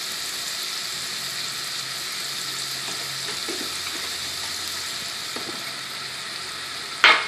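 Broccoli sautéing in duck fat in a nonstick frying pan: a steady sizzle. A single short, loud knock comes near the end.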